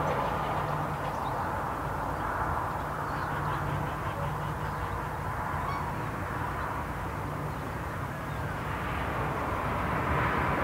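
Steady road-traffic noise from a nearby highway, a continuous tyre-and-engine roar with a low hum, swelling near the end.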